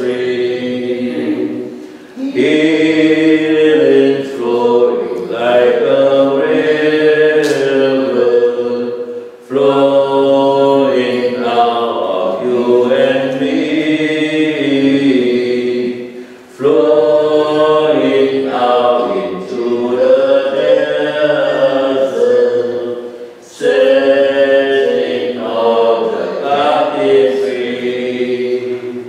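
Unaccompanied singing of a hymn, in long phrases of about seven seconds with a short break between each.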